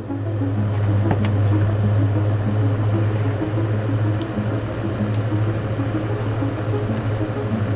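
Background music: a steady low drone with soft, stepping melodic notes above it, and a few faint clicks.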